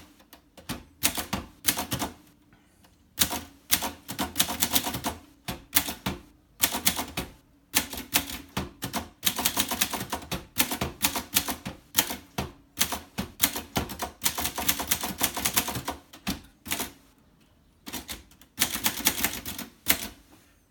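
Keys of a 1955 Groma Kolibri manual portable typewriter being struck in quick runs of clacks, typing random letters, with short pauses between runs and a longer one near the end.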